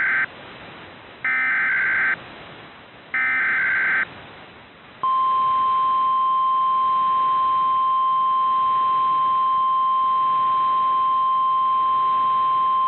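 Emergency Alert System SAME data header: the tail of one burst and two more one-second bursts of warbling digital screech, spaced about two seconds apart. About five seconds in, the National Weather Service's steady 1050 Hz warning alarm tone starts and holds.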